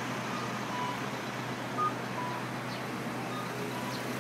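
A two-note electronic signal, a short higher beep followed by a longer lower one, repeating three times about every one and a half seconds over steady street traffic noise.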